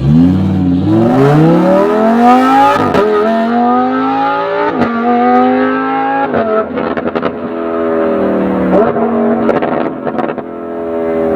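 Lamborghini Huracan LP610-4's V10 through an Armytrix titanium exhaust, accelerating hard with quick upshifts about three and five seconds in. It then lifts off with a string of crackles and pops on the overrun, picks up briefly again and pops once more as the revs fall away.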